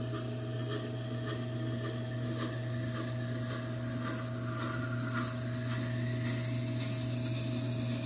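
Tormek T4 wet grinder's motor humming steadily while a knife's steel edge grinds against the turning stone, a continuous scraping rasp. This is the bevel being ground on the second side of the blade.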